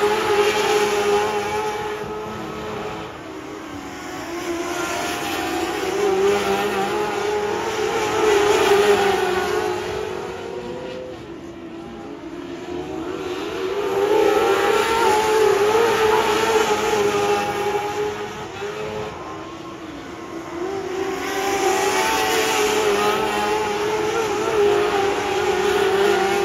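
Engines of a field of topless modlite race cars running at racing speed. The sound swells and fades as the pack comes round, about every seven or eight seconds.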